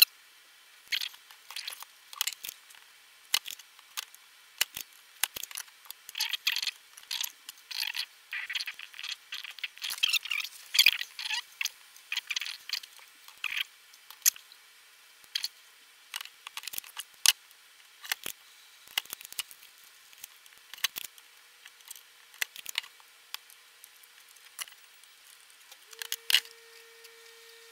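Irregular sharp clicks, snaps and short scrapes of parts being worked loose and pulled off an ATX power supply's circuit board, with the board handled between them. A faint steady tone comes in near the end.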